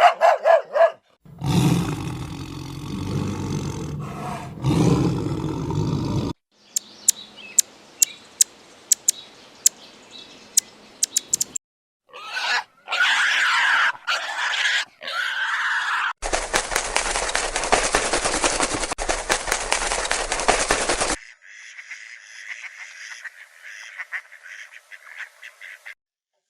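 A run of separate animal sound clips cut one after another: a low, loud call for a few seconds, then sharp clicks over a faint hiss, then several higher calls, a stretch of steady even noise, and a fainter chirring sound near the end.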